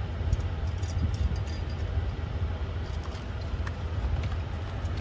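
Steady low rumble in the background, with light scattered clicks and taps as a metal storage-frame bracket and its screw are handled and positioned by hand.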